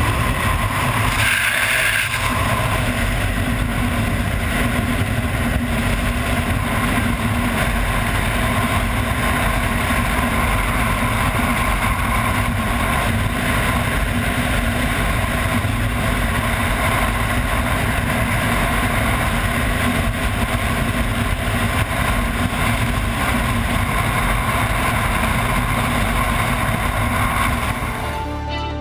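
Loud, steady wind rushing over the camera microphone during a skydiving freefall. It fades away near the end as the parachute opens.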